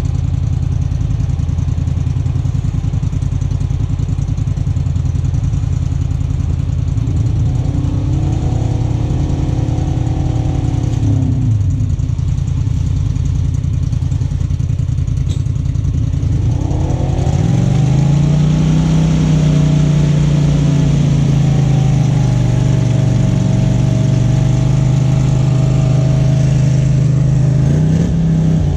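Engine of a 4x4 off-road vehicle running at low revs on a muddy trail. It revs up and eases off briefly, then climbs again partway through and pulls steadily at higher revs.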